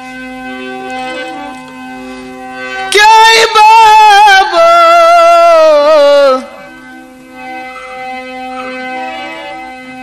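Harmonium playing a steady accompaniment. About three seconds in, a loud male voice enters on a long sung phrase with a wavering vibrato, falling in pitch before it breaks off a little over three seconds later.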